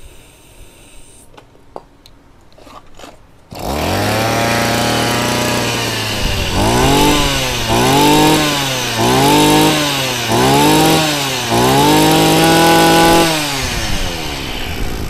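Small two-stroke brush cutter engine with a spring-assisted recoil starter: after a few faint clicks it catches about three and a half seconds in and runs. It is then revved five times, the pitch rising and falling with each blip of the throttle, and near the end it drops and winds down.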